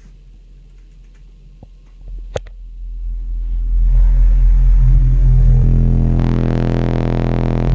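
Digital Designs 2518 18-inch subwoofer, driven by two DD M3b amplifiers, doing a bass 'burp' on a 42 Hz test tone. The tone starts about two seconds in with a click, swells for a couple of seconds, then holds very loud. About six seconds in it turns harsher and buzzier, and the burp meters about 134.7 dB.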